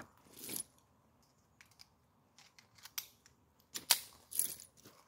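Metallic clicks and clacks of a Ruger Mark IV .22 pistol and its magazines being handled between strings of fire. There are several separate sharp clicks, the loudest just before four seconds in.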